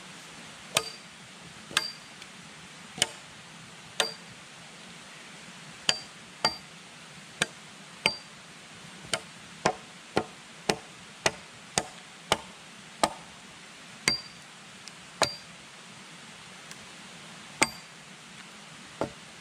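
Hatchet chopping into a wooden log: about twenty sharp blows at uneven intervals, some with a brief ring, with a longer pause near the end.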